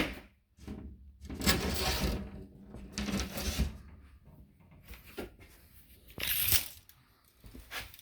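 A pre-cut wooden board being handled and pushed into place: a sharp knock, then several short scraping and rubbing bursts of wood against wood.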